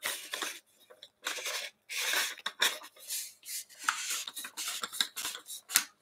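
Outin Nano portable espresso maker being assembled by hand: its black basket section scrapes and clicks against the white body as it is twisted on. The sound is an irregular run of short scratchy rasps and clicks, with a sharper click near the end.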